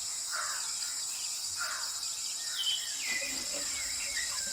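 Outdoor nature ambience: a steady high insect trill with scattered short bird chirps.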